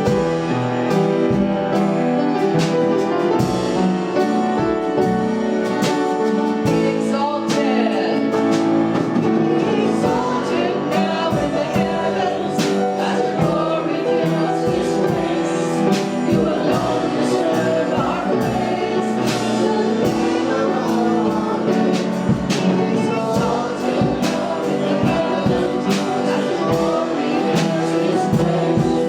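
Congregational worship music: voices singing a gospel song together over a keyboard and a steady beat.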